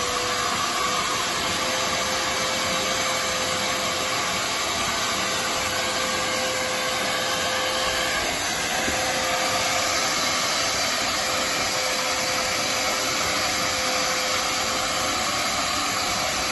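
DeWalt wet/dry shop vacuum running steadily, with a constant whine, as it sucks up the algae-green water left on the floor of a drained pool through its hose.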